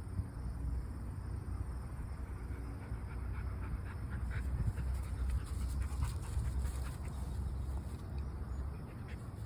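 Pit bull puppy panting while squirming on her back, with short scratchy rustling sounds from the wiggling, busiest between about three and seven seconds in, over a low steady rumble.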